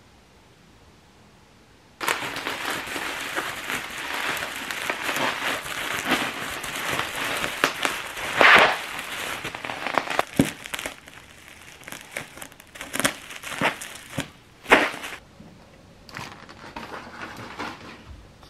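Bubble wrap crinkled and squeezed in the hands, a dense crackling run of plastic rustle and sharp popping bubbles. It starts suddenly about two seconds in, is loudest around the middle, and thins to scattered, fainter crackles after about fifteen seconds.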